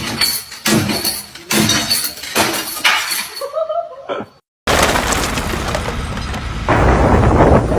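Repeated smashing and shattering strikes, several a second, with a thin high ringing over them. The sound cuts off about four seconds in, and a steady rushing noise follows that gets louder near the end.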